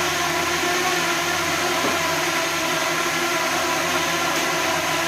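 DJI Mini 2 drone hovering, its propellers giving a steady whir with several held tones, mixed with the rushing of two electric fans blowing at it.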